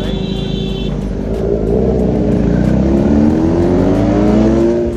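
Motorcycle engine accelerating hard, its pitch rising steadily for about three seconds before it breaks off suddenly near the end.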